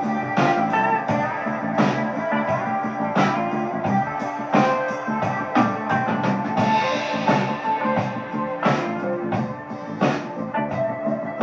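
Guitar-led rock or blues music with a steady drum beat, played back through a 71A single-ended directly-heated-triode tube amplifier of about 0.7 W.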